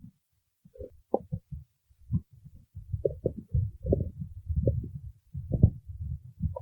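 A person's stomach growling and gurgling in irregular low rumbles, sparse at first and busier from about three seconds in: hunger growling from an empty stomach.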